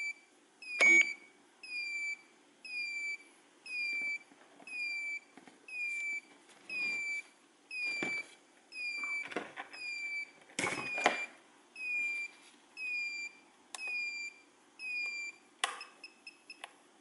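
A quadcopter's beeper sounding a steady series of short electronic beeps, about one and a half a second, each dipping slightly in pitch, with a few clicks in between. This is a failsafe warning on the flight controller. The beeping stops near the end, and a few quick higher beeps follow.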